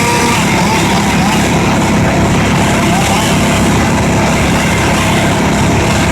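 Wood chipper running loudly and steadily, an engine drone with dense mechanical noise that does not let up.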